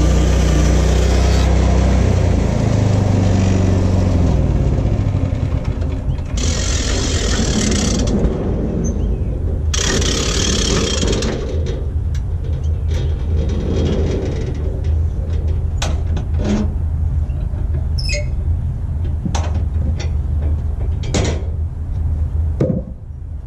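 Portable bandsaw sawmill running, with its engine at speed and the blade cutting through a glued-up block of oak and maple. The engine note changes pitch a few seconds in, and there are loud noisy stretches followed by scattered sharp knocks.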